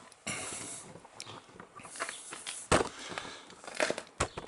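Irregular knocks, clicks and rustling handling noises, with one sharp knock about two and a half seconds in as the loudest.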